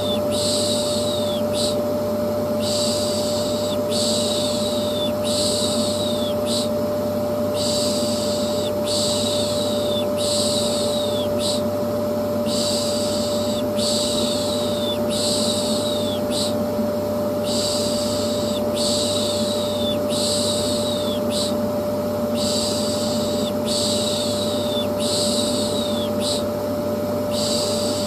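Vacuum cleaner running steadily with a constant hum, while a person shushes over it in a repeating rhythm: groups of about four long 'shh' sounds, each falling off at its end, with short pauses between groups. The combination is a soothing noise for a colicky baby.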